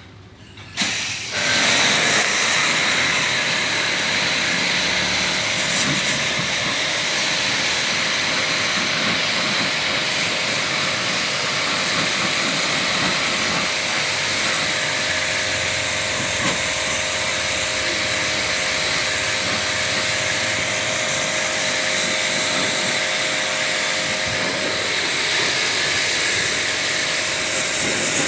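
Pressure washer spraying a jet of water, a steady loud hiss with a faint motor hum under it, starting suddenly about a second in.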